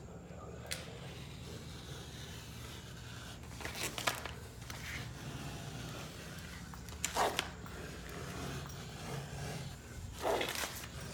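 Self-adhesive vinyl wall graphic being peeled back and pressed down along a molding: four short scraping, tearing sounds a few seconds apart.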